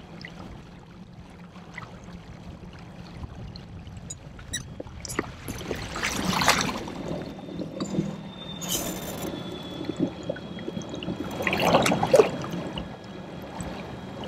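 Water sloshing and splashing against a plastic kayak hull as it turns tight circles, with a faint steady low hum underneath. The splashing swells twice, about six and twelve seconds in.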